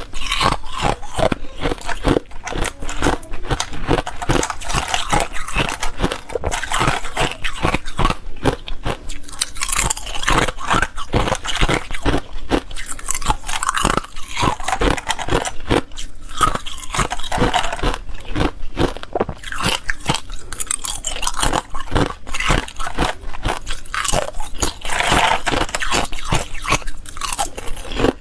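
Ice being bitten and chewed close to a clip-on microphone: a dense, continuous run of sharp cracks and crunches as hard clear ice breaks between the teeth.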